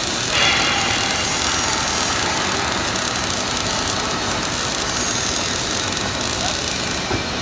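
MIG (GMAW) welding arc running steadily on a vertical 3G weld: a dense crackling hiss. Its sharpest top end falls away near the end.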